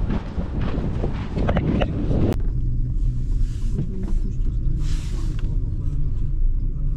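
Wind on the microphone and footsteps crunching on loose volcanic gravel. About two seconds in, these cut to the steady low rumble and hum of a cable-car gondola riding along its cable.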